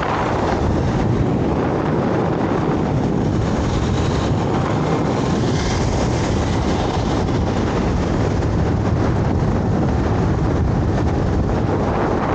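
Steady wind rush and road noise from a moving scooter, with wind buffeting the microphone.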